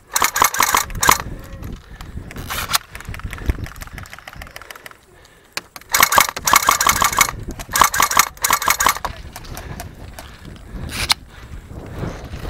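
Airsoft guns firing in rapid full-auto bursts, with several separate bursts of quick clatter: one right at the start, a short one around two and a half seconds, two longer ones around six and eight seconds, and a brief one near the end.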